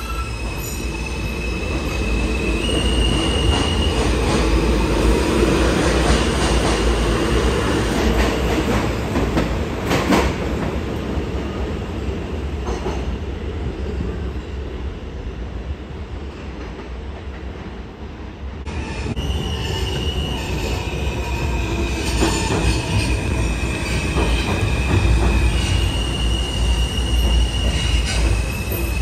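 New York City subway trains running through an underground station: a heavy rumble of wheels on rail with a high, steady electric-motor whine that steps up in pitch. It eases off in the middle, and from about 19 seconds in it builds again, with more stepping whine, as another train comes through.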